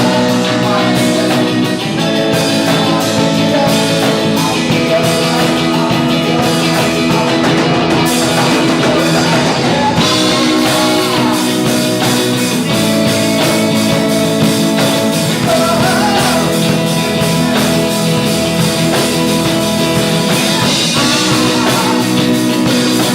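Rock music with guitar and drums, with some singing.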